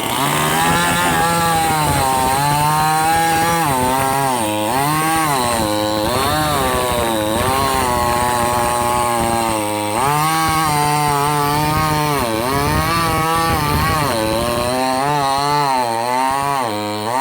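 Chainsaw cutting timber, running loud and continuously, its engine pitch repeatedly dropping as the chain bites into the wood and rising again as it frees up.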